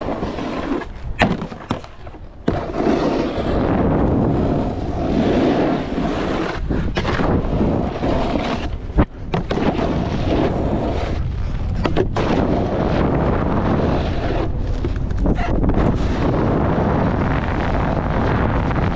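Snowboard sliding and carving down groomed snow: a continuous scraping hiss of the board's base and edges on the snow, under wind buffeting the action camera's microphone, with a few sharp knocks, the loudest about nine seconds in.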